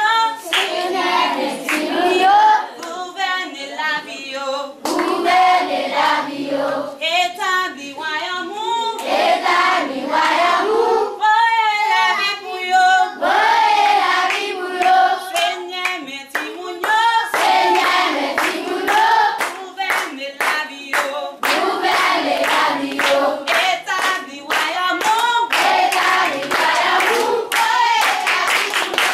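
A group of children singing a song together, clapping their hands along with it; the claps come thick and regular in the second half.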